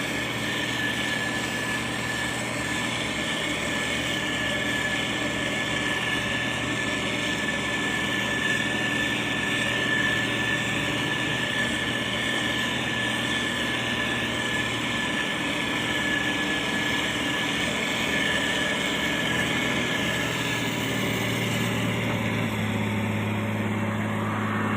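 Diesel engine of a heavy road-construction machine running steadily, its pitch shifting near the end.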